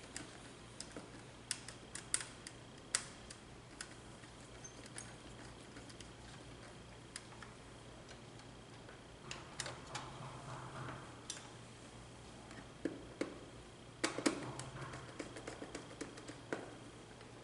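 Scattered small clicks and taps of a screwdriver and wire ends on the screw terminals of a Schneider TeSys IEC contactor as it is being wired, irregular and coming in short clusters, over a faint steady hum.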